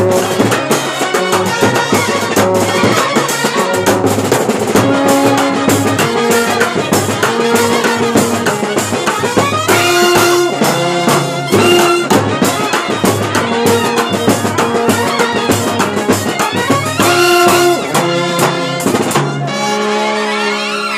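A Kerala brass band (bandset) playing: trumpets carry the melody over fast, loud beating of side drums, bass drums, a tom set and a cymbal. The trumpets hold long notes about halfway through and again later, and the drumming thins out near the end.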